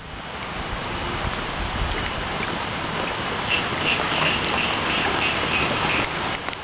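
Steady hiss and patter of water. In the middle comes a run of short, high chirps, about three a second, for two to three seconds.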